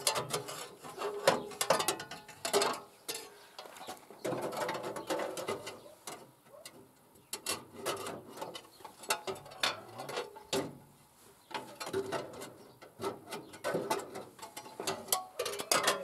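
Irregular metallic clicking and clanking of a wrench on the cooling-fan bolts of a D-65 tractor diesel, as the fan is unbolted and worked free of its pulley. The clicking quietens for a few seconds twice.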